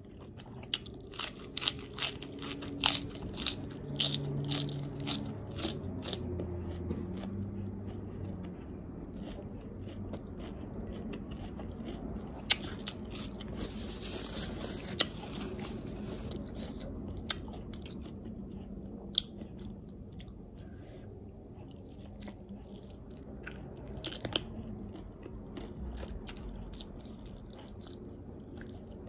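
Close-up sounds of a person eating lettuce wraps: crisp, crunching bites of fresh lettuce and chewing. The sharp crunches come thick and fast for the first several seconds, then sparser, with a few seconds of rustling as leaves are handled near the middle.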